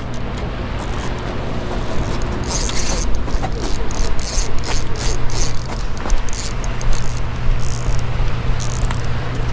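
Fishing reel being cranked, its mechanism giving off irregular bursts of ratcheting clicks.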